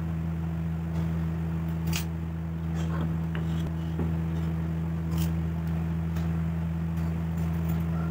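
Scattered light clicks and taps from a tape measure, pen and wooden strips being handled on a wooden bench, over a steady low hum.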